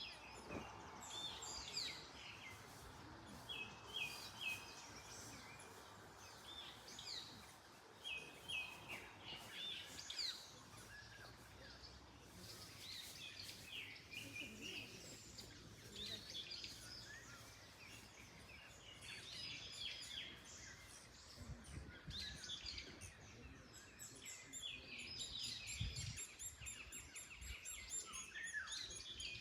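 Several birds chirping and singing in short, overlapping phrases, over a steady soft hiss of wind in the trees.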